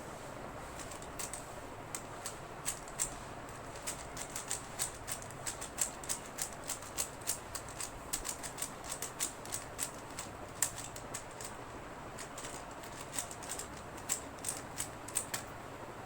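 3x3 Rubik's cube being turned fast in a timed speedsolve: a quick, irregular run of plastic clicks and clacks, several a second, that stops just before the end.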